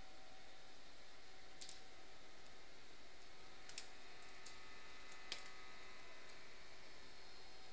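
About half a dozen faint, sharp clicks, irregularly spaced, over a steady background hiss: a pet cockatiel moving about its wire cage and seed sticks.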